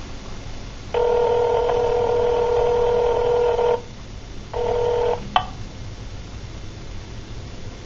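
Telephone line tone heard over the phone's speaker: one steady tone lasting about three seconds, a short gap, a brief second tone, then a click.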